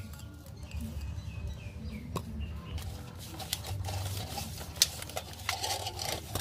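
Hands rubbing salt into a raw whole chicken in a metal bowl: irregular wet squishing and light slaps of palms on the skin, mostly in the second half.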